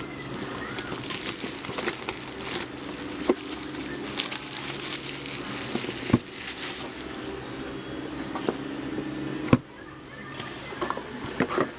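Plastic shrink wrap crinkling and tearing as a hobby box of trading cards is unwrapped and opened, with a few sharp knocks of the box being handled.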